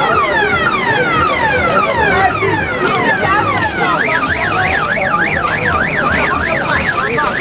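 Ambulance's electronic siren sounding: a run of falling sweeps, then about four seconds in it switches to a fast up-and-down warble.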